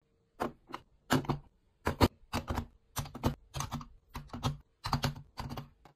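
White plastic bead storage cases clacking as they are handled and stacked one on another: about nine short clattering knocks, some in quick pairs.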